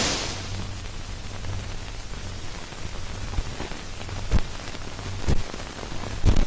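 Surface noise of an old film print's soundtrack: steady hiss and a low hum with scattered crackle, and several sharp pops in the second half, as trailer music dies away at the start.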